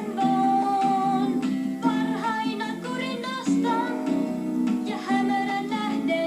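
A song playing: strummed or plucked acoustic guitar with a voice singing over it.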